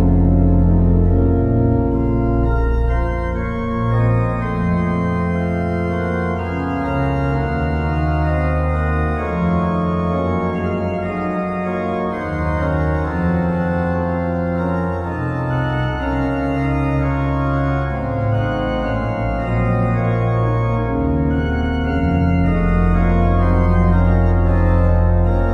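Background organ music: held chords over a deep, sustained bass line, changing every second or two.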